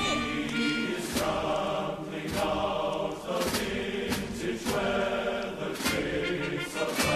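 Choral music: a choir singing held notes.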